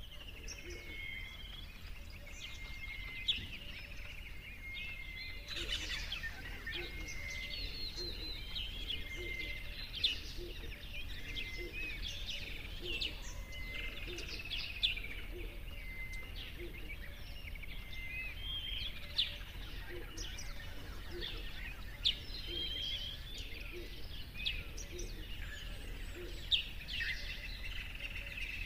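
Fruit bats squeaking and chirping as they crowd together and feed: a continual scatter of short, high-pitched squeaks with a few sharper clicks among them.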